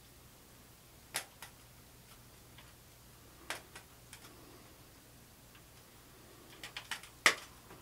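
A small hand cutter's blades clicking and snipping as they bite into the thick, tough root of a Ficus microcarpa ginseng. The clicks are short and scattered, with a quick run and the loudest snap near the end. The cutter is too small for the root, so it takes repeated bites.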